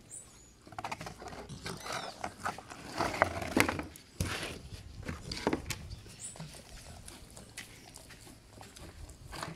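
Pit bull dogs sniffing about and eating from their feeding bowls on a wooden table: irregular small clicks and knocks.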